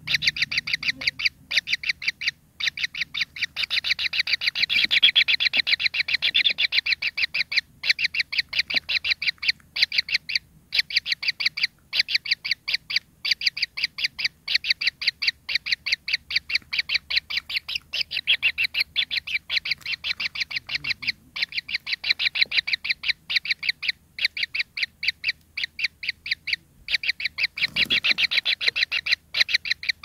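Kingfisher nestlings calling from the nest burrow: a fast, unbroken run of short, harsh begging calls, several a second, with only a few brief pauses.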